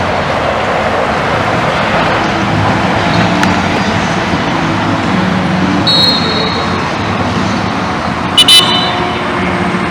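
Steady road-traffic noise, with a short high whistle about six seconds in and two sharp whistle blasts, the loudest sounds, about eight and a half seconds in.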